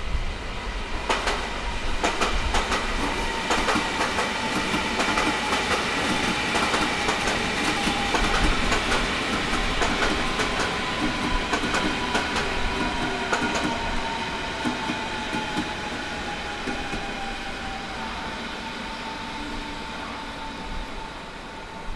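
A train running through the station, its wheels clicking and clattering over rail joints and points, with a high whine that slowly falls in pitch. The clatter dies out about two-thirds of the way in, and the rumble fades.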